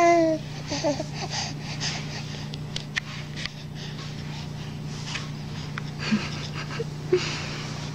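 A young baby breathing noisily close to the microphone, with wheezy, snuffly breaths and small mouth sounds, after a short falling coo right at the start. A steady low hum runs underneath.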